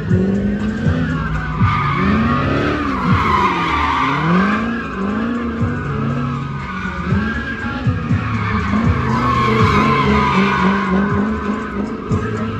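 A car doing donuts: its tyres squeal without a break while the engine revs up and down over and over, about once a second.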